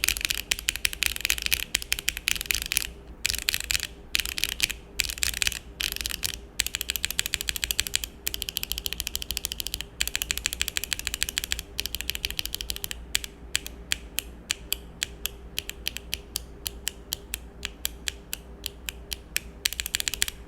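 Mechanical keyboard typing on Akko Matcha Green V3 Pro switches, some stock and some hand-lubed, with a muted clack. Fast runs of keystrokes broken by short pauses give way about halfway through to single presses spaced evenly, a few a second.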